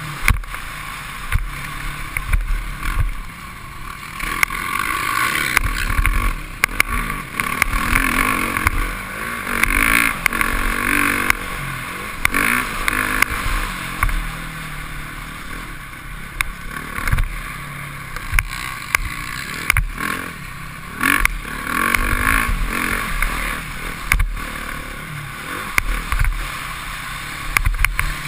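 Motocross dirt bike engine revving up and falling back over and over as the rider works the throttle and gears, heard from a helmet camera, with a low wind rumble on the microphone and sharp knocks from the rough track.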